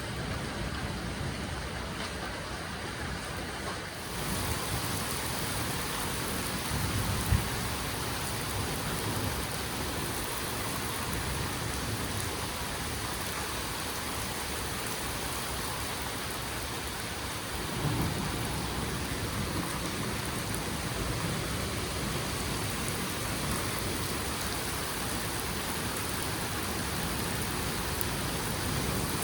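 Steady rain from a thunderstorm, with a low rumble of thunder about seven seconds in and another around eighteen seconds in.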